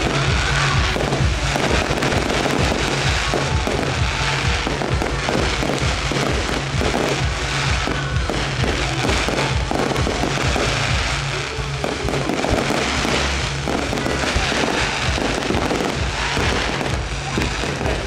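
Fireworks display going off without a break: a dense run of bangs and crackling stars, with music playing underneath.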